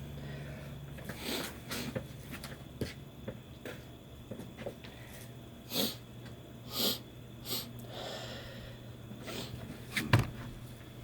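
A person sniffing and snorting through the nose in short breaths, a dozen or so, two of them louder about six and seven seconds in, as chhinkni sneezing powder works on the nose without bringing on a sneeze. A sharp click about ten seconds in is the loudest sound, over a steady low hum.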